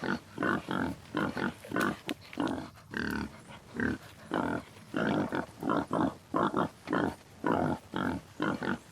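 An animal grunting in a quick run of short calls, about two to three a second.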